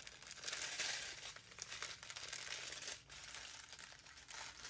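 Plastic packaging of a diamond painting kit crinkling as it is handled, loudest from about half a second to a second and a half in.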